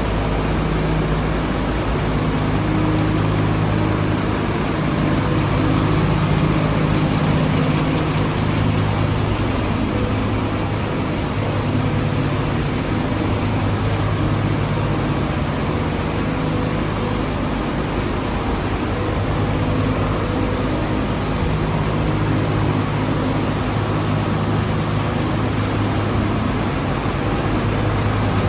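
Mercedes-Benz Axor 2533 truck's turbo diesel engine idling steadily.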